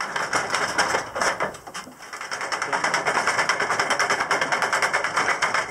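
Hand winch hauling a wooden bucket up a timbered mine shaft on its rope, with rapid, even clicking from the winding gear that grows steadier and louder about halfway through.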